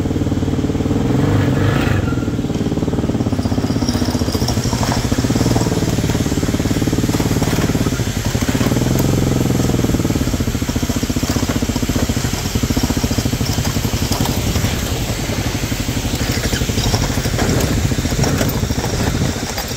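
Quad bike (ATV) engine running steadily as it is ridden, its pitch swelling briefly about eight to ten seconds in.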